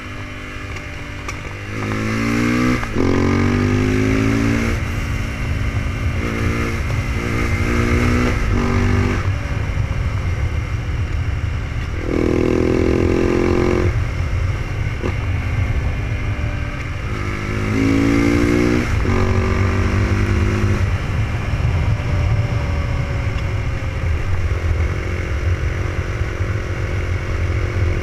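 KTM 690 SMC's single-cylinder engine under way, its note climbing several times as the rider accelerates, with breaks between the climbs and steadier running near the end. A constant low wind rush on the microphone lies under it.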